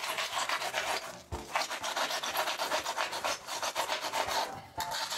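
Pruning saw cutting through a rigid foam board with fast back-and-forth strokes, a dry rasping scrape that pauses briefly twice.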